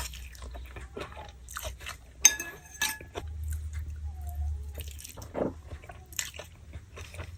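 Close-up eating sounds of mie nyemek (saucy Indonesian noodles) being chewed, with wet mouth clicks and smacks. About two seconds in, a spoon or fork strikes the plate with a short ringing clink.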